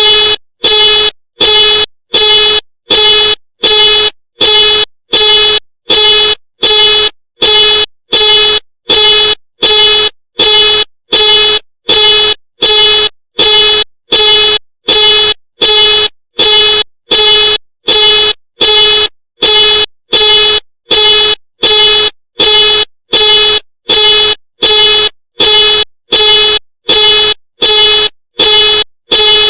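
Ford car alarm sounding the horn in a steady, even pattern: loud, identical short honks, about three every two seconds.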